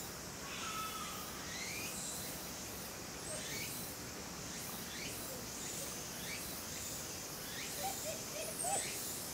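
Steady chorus of insects, with a run of short rising whistle-like calls repeating about once a second over it and a few short lower calls near the end.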